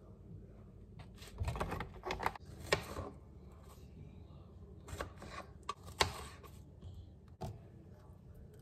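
Strawberries handled and cut with a kitchen knife on a plastic cutting board. A cluster of knocks and handling clatter comes about a second and a half in, then single sharp taps of the blade on the board from about five seconds in.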